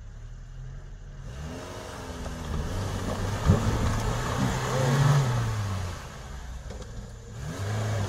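Lada Niva engine revving hard as its wheels churn through creek water and mud, with splashing throughout. There is a single thump about three and a half seconds in; the revs ease off about six seconds in, then climb again near the end.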